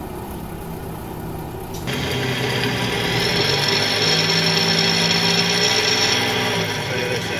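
Damaged front wheel bearing on a moving car, a steady whirring drone with road noise that grows louder about two seconds in, where a high whine and a low hum join it. It is the sound of a hub bearing worn down by water and dust getting into it.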